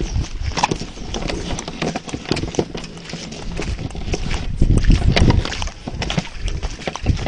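Irregular clicks and knocks with bursts of low rumble, handling and movement noise on an action camera's microphone.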